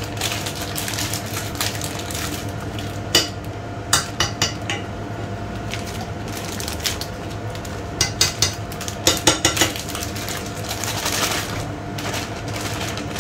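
Water boiling in a stainless steel pot under a steady hum, with sharp metal clinks and knocks of the pot scattered through, several in quick succession past the middle. A plastic bag rustles as tortelloni are tipped into the water.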